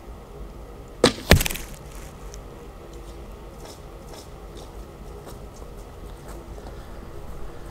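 An arrow shot from a longbow strikes a bag archery target beside two arrows already in it. A sharp crack comes about a second in, followed about a third of a second later by the louder, deeper thud of the hit.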